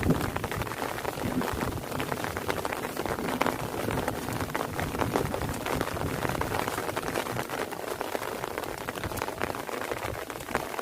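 Steady rain falling, a dense patter of many drops with no let-up.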